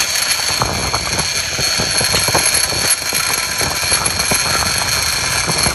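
Outboard motors of a sportfishing boat running steadily under way, with a steady high whine over water rushing and splashing in the wake.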